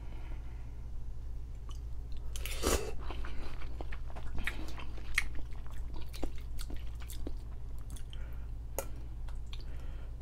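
A person eating a bowl of noodles close to the microphone: wet chewing with many short sharp clicks, and a louder rush of noise about two and a half seconds in.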